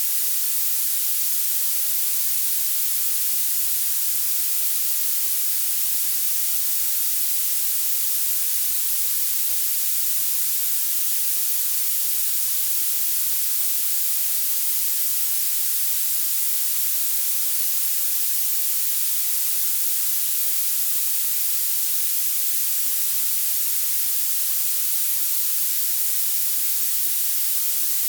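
Violet noise: a steady, even hiss heavily weighted toward the highest frequencies, with almost nothing in the bass.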